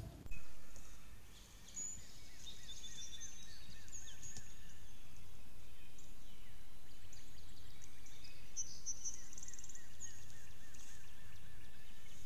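A brief louder sound just after the start dies away within about a second and a half. Then several songbirds chirp and trill over a steady outdoor hiss.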